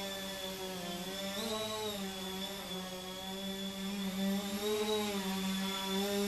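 Hunter V-Tail 400 multirotor flying, its 1000 kV brushless motors and 9-inch propellers making a steady buzzing hum. The pitch rises briefly about a second and a half in, and again near five seconds, as the throttle changes.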